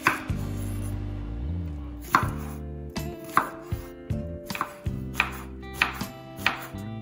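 Kitchen knife cutting a red onion on a bamboo cutting board: sharp knocks of the blade through the onion onto the board, a second or more apart at first, then about two a second as the dicing begins. Soft background music plays underneath.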